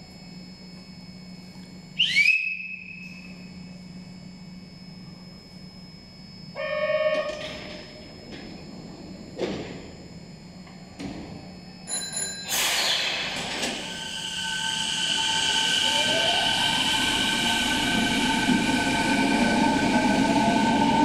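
Kobe subway train with electric traction motors whining and rising in pitch while the running noise grows louder and then holds steady, after a few short knocks and tones earlier on.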